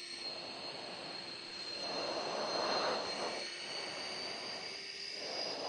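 Military jet's engines running at low taxi power, heard from inside the cockpit: a steady rushing noise under a thin high whine that creeps slowly higher, swelling louder about two to three seconds in.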